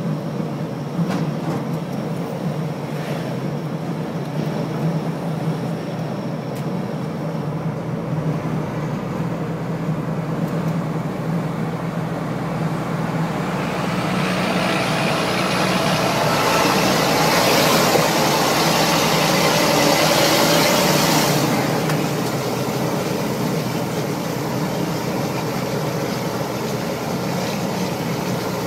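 Truck's diesel engine running with its turbocharger whining, the whine climbing in pitch from about eight seconds in. The sound grows loudest for a few seconds, then drops away suddenly a little past twenty seconds, and the steady engine note carries on.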